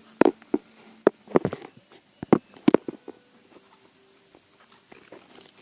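A quick, irregular series of sharp taps and knocks, about nine in the first three seconds, then only faint small clicks.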